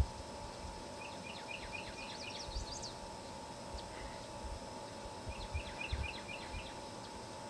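A songbird singing two phrases of quick repeated chirps, the first climbing into higher, faster notes; the phrases come a few seconds apart, over faint low rumbling.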